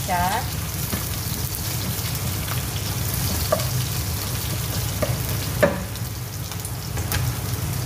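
Sliced onion and garlic sizzling in hot oil in a nonstick pot as they fry toward brown, stirred with a wooden spatula. A few short knocks of the spatula against the pot, the loudest about two-thirds of the way in.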